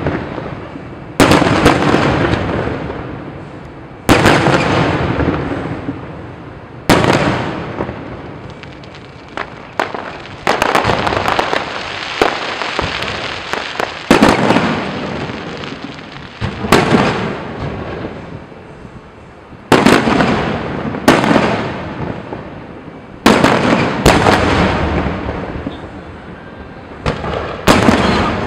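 Aerial fireworks shells bursting overhead: about ten loud booms, two to four seconds apart, each trailing off in a long rolling echo. A stretch of crackling comes about ten to thirteen seconds in.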